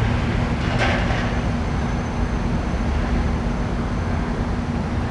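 Air conditioner unit running: a steady mechanical hum under constant fan-like noise, with a brief hiss about a second in.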